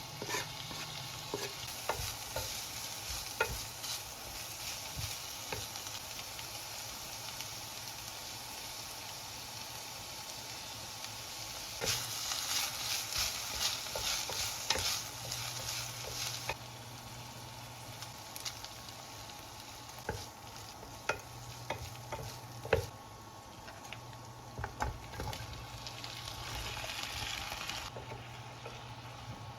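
Food sizzling in a frying pan while it is stirred, with scattered sharp taps of the utensil against the pan. The sizzle grows louder for a few seconds about twelve seconds in.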